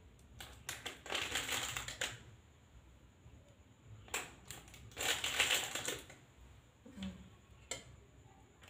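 Crackling rustle of a paper food wrapper being handled as food is taken from it onto a plate, in two bursts of about two seconds each, followed by a few light clicks near the end.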